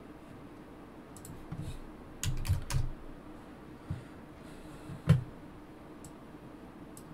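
Computer keyboard typing: a quick run of keystrokes about two seconds in, then single taps, the loudest about five seconds in.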